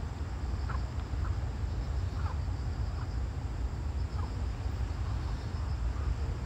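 Outdoor ambience: wind rumbling on the microphone, with faint short bird chirps every second or so and a faint high insect trill in the background.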